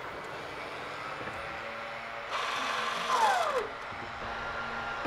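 A small electric motor whirs for about a second, about halfway through, and winds down with a falling pitch. A faint steady hum runs under it.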